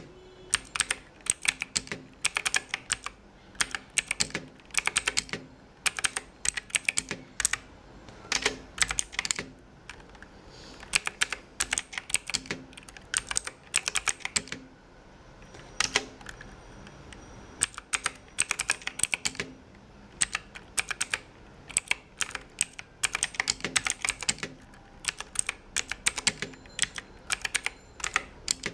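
Fast typing on a Bajeal K100 mechanical keyboard: crisp key clicks in quick runs broken by short pauses.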